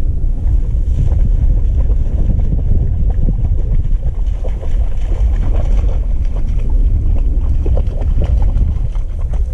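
Wind buffeting the microphone: a steady, loud low rumble. Scattered faint rustles and splashes come through it as a dog pushes through cattails and shallow water.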